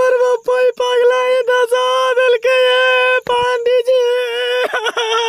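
A person wailing loudly in exaggerated crying: a high, held, almost sung note repeated over and over, broken by short sobbing catches.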